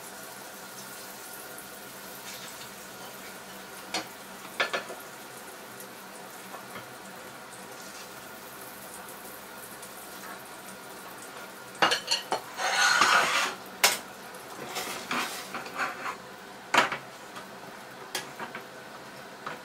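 A spatula scraping and knocking against a cast-iron frying pan while hot bacon fat sizzles quietly in it. There are a couple of light knocks about four seconds in, then a dense run of scraping and clatter about two-thirds of the way through, and a few more knocks as a steel pot is stirred near the end.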